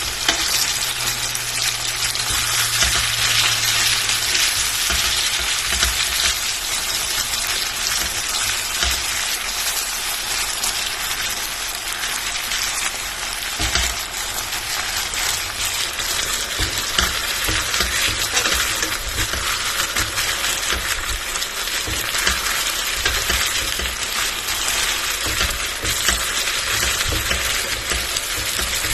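Chicken breast slices frying in a pan with onions, a steady sizzle, with occasional light knocks.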